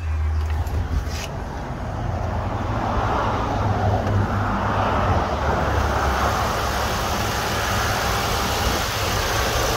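2011 Honda Ridgeline's 3.5-litre V6 idling steadily with a low hum, its hiss growing louder and brighter over the first few seconds.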